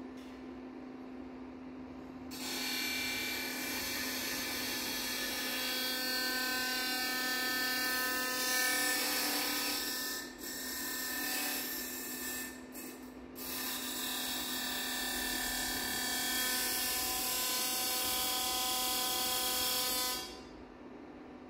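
Amplified noise from an experimental live sound performance with objects: a dense, gritty buzz full of steady whining tones, like a small drill or rasp, begins a couple of seconds in, drops out briefly twice around the middle, and cuts off near the end. A steady electrical hum sits underneath.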